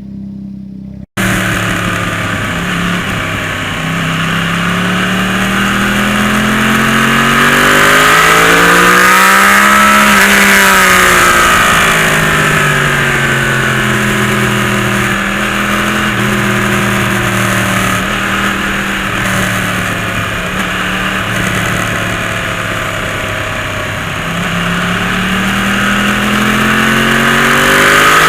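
Yamaha YZF-R1 inline-four engine under way, pitch climbing to about ten seconds in, dropping back, holding steady, then climbing again near the end. A brief dropout about a second in.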